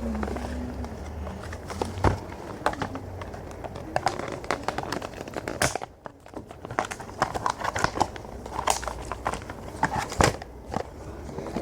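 Toy blaster packaging being opened by hand: cardboard and plastic crinkling and rustling, with many scattered clicks and taps and a couple of sharper knocks.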